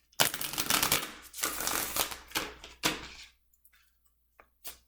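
A tarot deck being shuffled: a dense, rapid clatter of cards for about three seconds, then a few single taps and slaps of cards.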